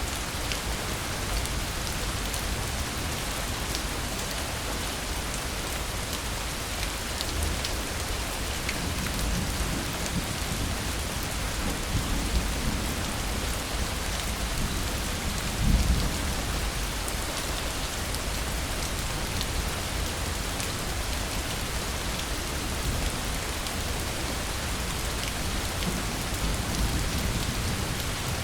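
Steady, dense rain falling, with scattered sharper drop ticks. There are a couple of brief low rumbles, about twelve and sixteen seconds in.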